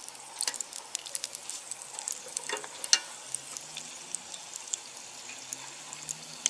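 Shrimp-and-mung-bean batter cake frying in its mold in a pot of hot oil: the oil sizzles steadily with many sharp crackles and pops.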